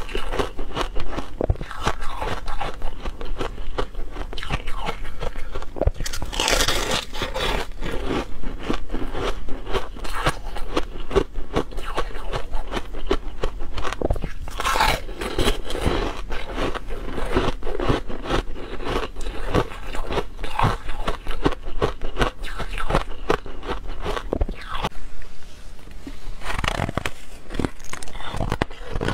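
Soft freezer frost being bitten and chewed close to a clip-on microphone: a dense run of irregular crunches and crackles, with some scraping.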